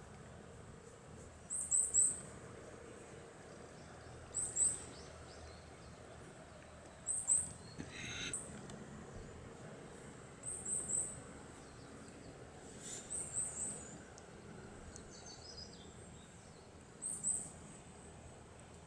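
A small bird calling: six short groups of two or three very high chirps, roughly every three seconds, over faint background noise.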